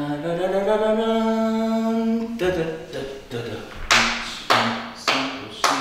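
A man's voice hums one long held note that slides up at the start and lasts about two and a half seconds. From about four seconds in, sharp hand claps come roughly twice a second, each with a short ringing tail, with short hummed notes between them.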